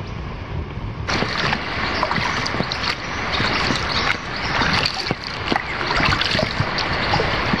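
Paddles dipping and splashing as a small inflatable raft is rowed, starting about a second in: a steady wash of water with many small splashes and drips.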